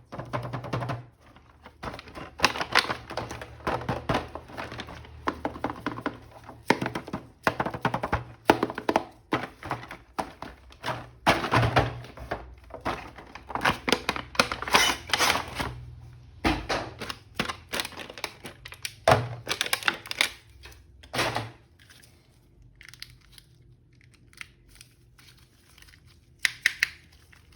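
A plastic action figure and its packaging being handled and unwrapped: rapid clicks, knocks and crinkling, tearing rustles. They thin out to a few faint taps after about twenty-two seconds.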